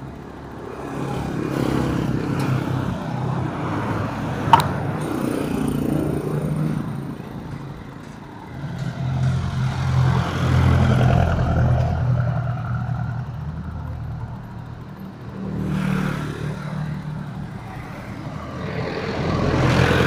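Road traffic: motor vehicles passing one after another, their engine noise swelling and fading in several waves. There is a short sharp clack about four and a half seconds in.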